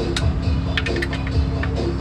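Background music with a steady beat: repeating bass notes and sharp percussion hits.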